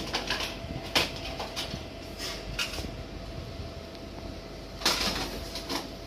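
Hard plastic fire alarm parts, smoke detector bases and heads, clattering and knocking in a cardboard box as they are rummaged through, with a louder knock about five seconds in. A steady hum runs underneath.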